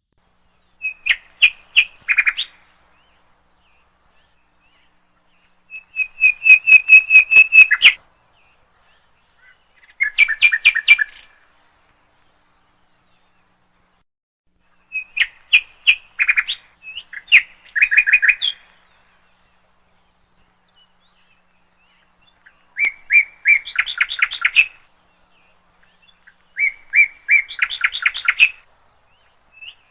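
Small bird chirping, as a sound-effect clip: about seven short bouts of rapid, high chirps, each a second or two long, with dead silence between the bouts.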